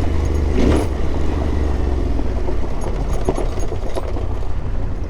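Yamaha Ténéré 700's parallel-twin engine running steadily, heard from on the bike.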